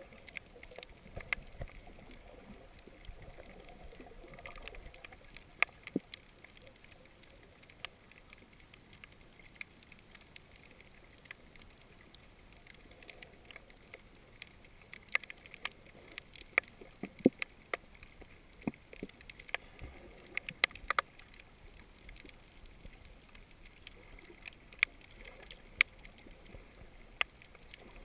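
Underwater ambience heard through a submerged action camera: a low, steady wash with scattered sharp clicks and pops, most frequent past the middle.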